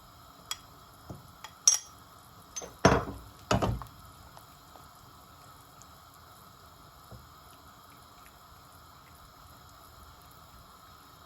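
Metal spoon clinking and knocking against a bowl and pan several times, the loudest about three seconds in, as the last of the cornflour slurry is added to the gravy and stirred. After that only a faint steady hiss of the simmering gravy.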